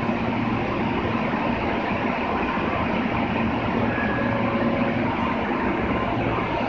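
Osaka Municipal Subway 22 series train standing at the platform with its equipment humming steadily, then starting to pull away in the last seconds.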